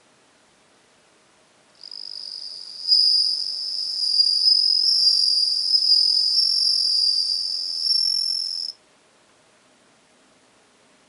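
Japanese bell cricket (suzumushi) singing a high, ringing trill. It starts softly about two seconds in, grows louder a second later, and stops abruptly about three-quarters of the way through.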